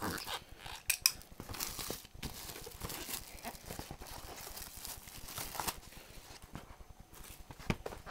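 Sealed trading card box being opened: plastic shrink wrap cut and torn off and the cardboard box handled, with rustling, scraping and a few sharp clicks.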